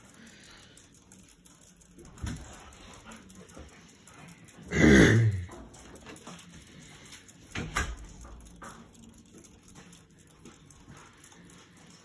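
Hampton Bay Gazebo II ceiling fan running with a faint steady whoosh of its spinning blades. About five seconds in a short, loud voice-like call stands out, and there are lighter knocks a couple of seconds before and after it.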